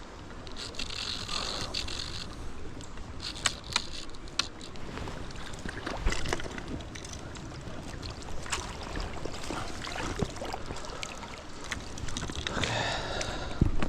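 Stream water sloshing and splashing with scattered clicks and knocks, typical of a trout being handled and released in shallow water.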